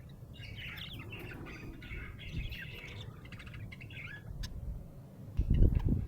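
A happy budgerigar (budgie) chirping in a rapid string of short, warbling chirps. A louder low rumble comes in near the end.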